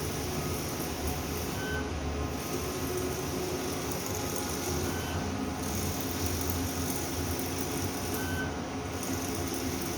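Large-format CJ.6000 outdoor inkjet printer running, its print-head carriage shuttling back and forth across the 3.2-metre width. About every three and a half seconds its sound changes as the carriage turns round, with a short high tone each time, over a steady machine hum.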